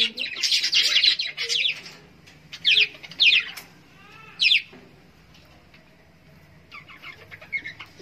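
Budgerigars chattering in a fast, busy warble. Then come a few single sharp chirps about a second apart, and softer chirps near the end.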